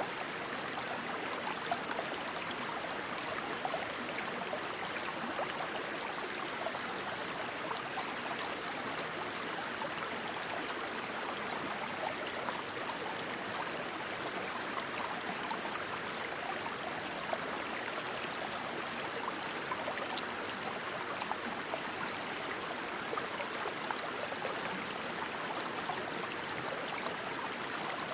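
Rushing stream water flowing steadily, with scattered short high-pitched chirps over it and a brief fluttering trill about eleven seconds in.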